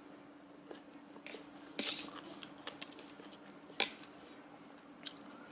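Someone eating hor mok: soft chewing and small mouth clicks, with a short rustle about two seconds in and a sharp click near four seconds.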